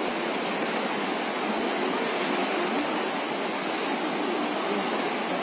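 Swollen, fast-flowing river rushing: a steady wash of water noise.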